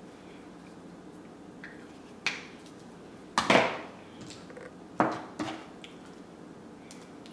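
A few sharp clicks and light knocks of small makeup items being handled and set down, the loudest about three and a half seconds in, over faint steady room hiss.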